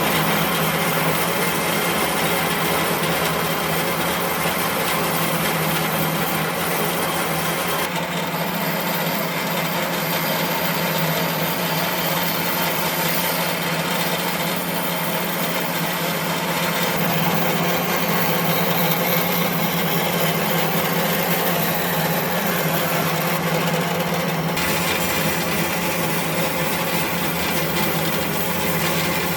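A power tool running steadily against wood: a constant motor hum under an even working noise, its tone shifting slightly about eight seconds in and again near the end.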